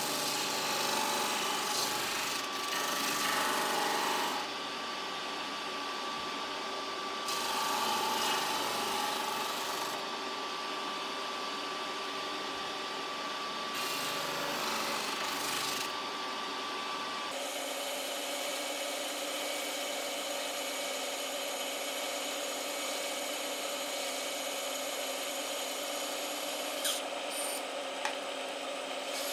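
An electric power tool running steadily while it cuts or works wood. Its motor note changes about two-thirds of the way through.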